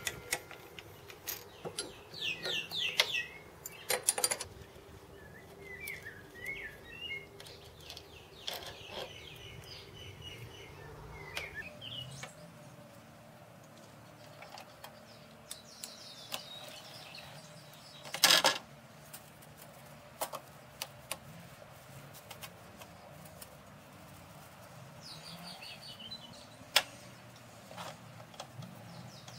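Metal-on-metal squeaks and clicks as a nut is worked off a threaded steel arbor and a cast aluminium pillow block is handled in the lathe chuck. Short chirping squeaks come in scattered bursts, with two sharp knocks, one past the middle and one near the end.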